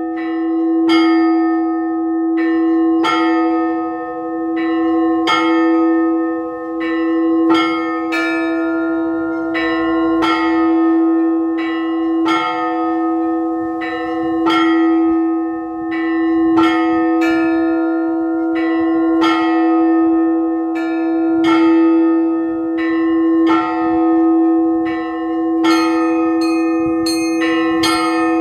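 Orthodox church bells rung by a bell ringer in a simple repeating pattern. A deep bell sounds about every two seconds under regular strokes of smaller, higher bells, and the small bells quicken near the end.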